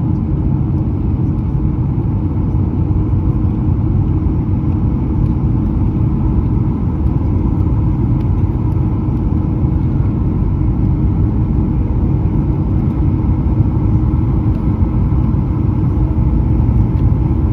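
Steady rumble inside the cabin of a Boeing 737-900 from its CFM56 engines and the airflow, with a faint steady hum over it.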